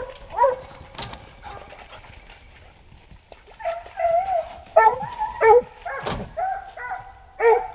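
Hunting hounds whining and yelping in short, high, bending cries: two at the start, then a quieter gap, then a run of repeated yelps from about halfway on. A single sharp knock comes a little after halfway.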